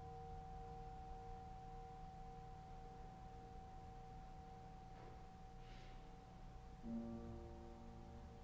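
Church organ playing softly, holding long sustained chords; about seven seconds in a new chord enters.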